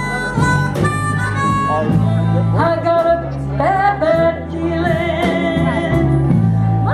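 Live blues band playing, with a harmonica lead bending notes up and then holding a long note, over a bass line and guitar.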